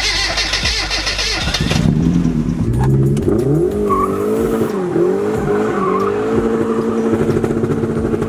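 Mazda Miata engine revving up and down, its pitch rising and falling several times, after a rushing noise in the first two seconds.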